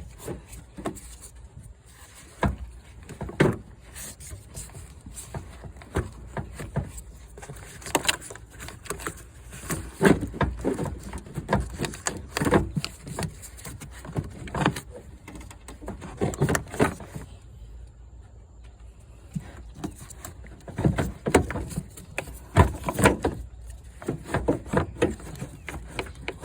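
Plastic engine air filter box being wiggled and pushed down into its mounting: irregular knocks, clunks and scraping of plastic parts, with a quieter spell about two-thirds of the way through.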